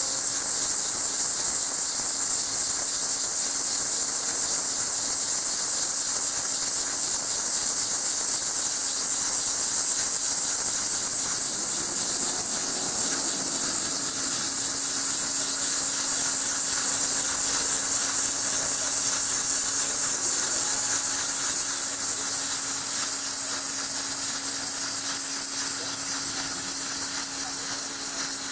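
MUBEA CNC plate drilling machine running, with a loud steady hiss throughout. A steady low hum joins about twelve seconds in.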